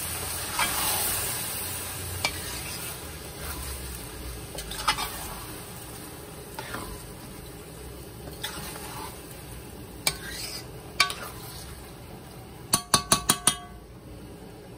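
A metal spoon stirring and scraping thick, wet pelau rice around a large metal pot, with light sizzling underneath. Near the end come about six quick, ringing metallic taps of the spoon against the pot.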